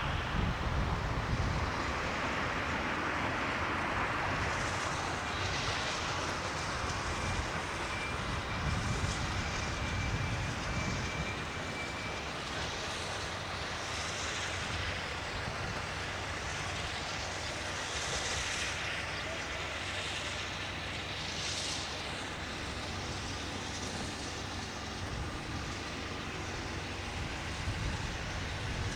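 Steam train running by, a steady rumble with a few soft hissing surges.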